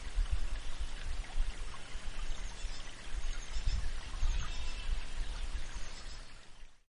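Outdoor ambience: wind rumbling unevenly on the microphone over a steady rushing hiss, fading out near the end.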